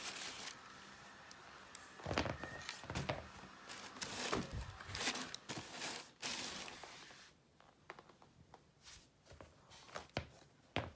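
Fabric and packaging rustling as a cotton T-shirt is handled and unfolded over a cardboard shoebox, in irregular bursts for the first several seconds, then quieter with a few light knocks near the end.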